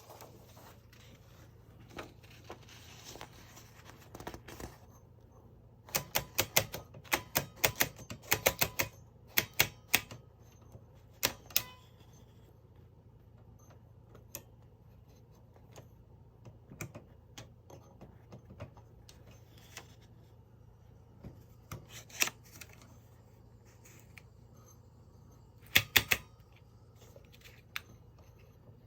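Mignon No. 4 index typewriter being worked: sharp mechanical clacks of its print keys and type mechanism in irregular bursts, densest about a quarter of the way in, then scattered single strikes and two short clusters near the end.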